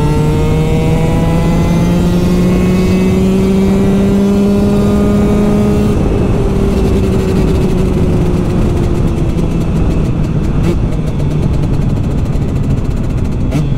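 Husqvarna 125 TX two-stroke engine with an FMF pipe and Akrapovic silencer under way on the road: the revs climb steadily for about six seconds, then fall away slowly as the throttle is eased, and settle to a steady cruise.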